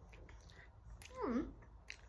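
A short voiced sound from a person, like a closed-mouth 'mm', gliding down in pitch about a second in, followed by a small click near the end.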